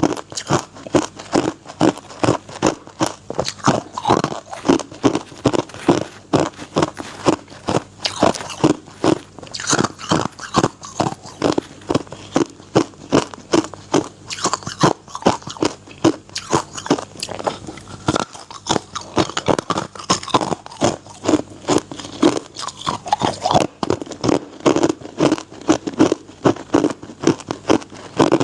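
Close-miked chewing of crushed and shaved ice: rapid, steady crunching, several bites a second.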